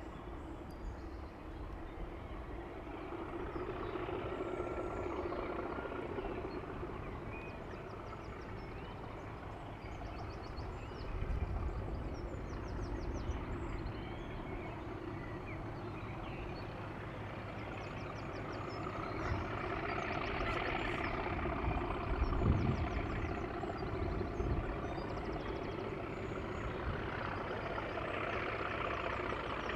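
Class 37 diesel-electric locomotive's English Electric V12 engine running, a steady rumble that swells and fades twice, with a couple of low thuds.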